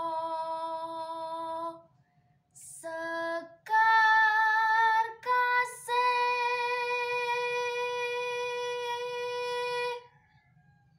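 Unaccompanied solo female voice singing Javanese tembang macapat. She holds long notes with a slight waver, phrase by phrase, with short pauses between phrases. The last long note ends about a second before the close.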